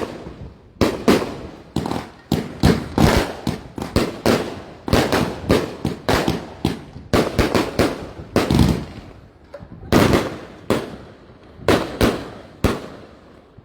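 Fireworks going off in a rapid, irregular series of sharp bangs, two or three a second, each with a short echoing tail, stopping about a second before the end.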